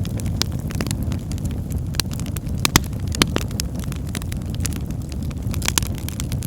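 Fireplace fire crackling: a steady low rumble with scattered sharp pops and snaps, two of them louder a little under three seconds and just over three seconds in.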